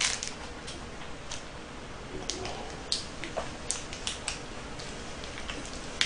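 Thin plastic wrapper of a mini KitKat crinkling and tearing as it is picked open by hand, in a dozen or so short, scattered crackles.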